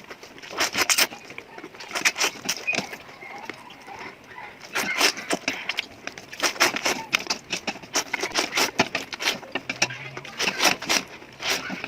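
Close-up eating sounds of spicy noodles being eaten: irregular wet smacks, chewing and slurping clicks in quick succession.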